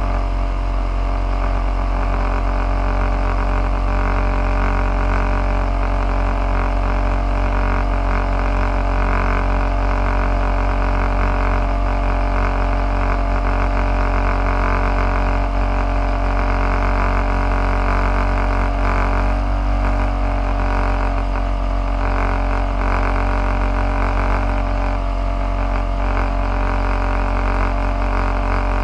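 Car engine idling steadily: an even, unchanging hum.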